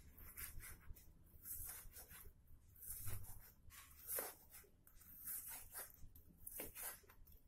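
Kitchen knife slicing raw buffalo meat on a plastic cutting board: a run of faint, uneven scraping strokes as the blade draws through the flesh and against the board.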